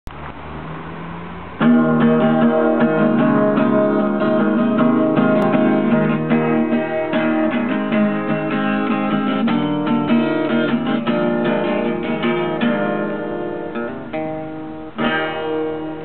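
Small-bodied acoustic guitar playing a short, quick tune of picked notes and strums, starting about a second and a half in, thinning out near the end and closing with a final strum.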